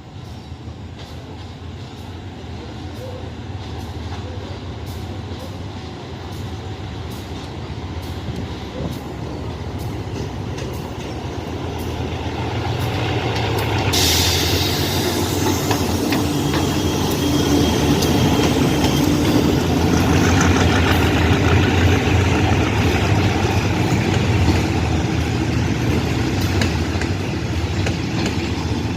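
Diesel-hauled passenger train approaching and growing steadily louder, a low engine hum underneath, with rushing wheel-and-rail noise joining about halfway and staying loud to the end.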